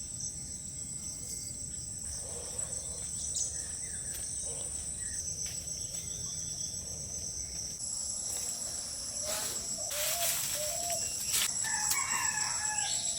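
A rooster crowing in the second half, over steady high-pitched insect chirring.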